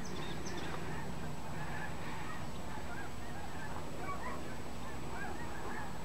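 Many short, faint bird calls, overlapping and scattered throughout, over a steady low background rumble.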